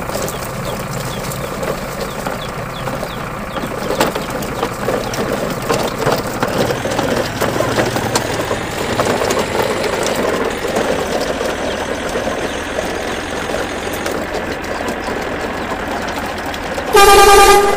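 Steady engine-like rumble and rattle, then a loud truck horn honk near the end.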